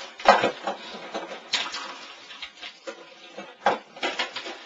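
Computer keyboard being struck hard, giving irregular clattering knocks. There is a loud hit just after the start and another cluster a little past three and a half seconds.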